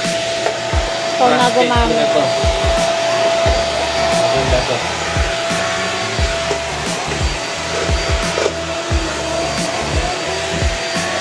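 Stick vacuum cleaner running steadily: a rushing of air with a constant whine, and a few low knocks as it is handled.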